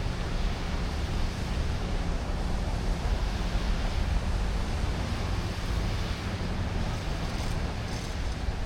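Steady city street ambience: a constant hiss and low rumble of traffic, with wind buffeting the microphone.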